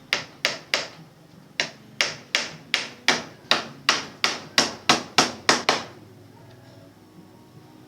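Hammering: three quick blows, a short pause, then a steady run of about three blows a second that stops about six seconds in.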